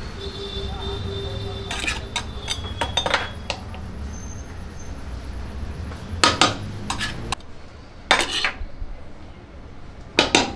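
Metal scoop clanking and scraping against the side of a large metal biryani pot as cooked rice is dug out. It comes in irregular groups of clinks, the loudest about two-thirds of the way through and at the very end, over a low steady hum.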